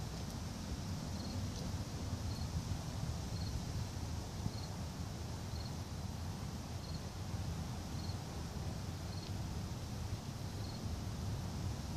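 Outdoor ambience: a steady low rumble under a faint, short high chirp that repeats about once a second.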